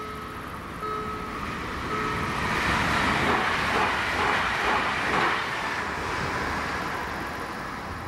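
PESA Elf EN76 electric multiple unit passing over a level crossing: a rush of wheel and rail noise swells about two seconds in, peaks, then fades as the train moves away. Before the train arrives, the crossing's warning bell strikes about once a second.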